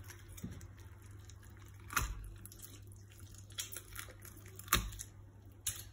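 Faint wet squelching of a raw catfish's gut and flesh being pulled apart by hand, with three short sharp clicks, about two seconds in and twice near the end.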